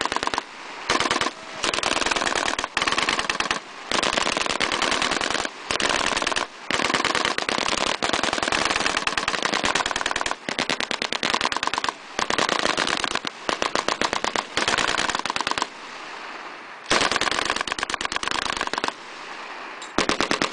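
7.62 mm M240B machine-gun fire in short rapid bursts, one after another with brief pauses between them, as in the 6-to-9-round bursts of a qualification course.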